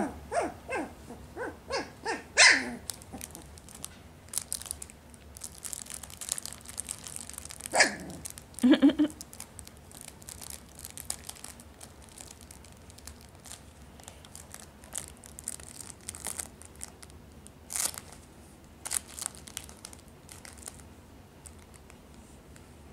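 Young puppies giving a run of short yips and barks in the first couple of seconds, then a couple more around eight seconds in, with faint scattered rustles and taps in between.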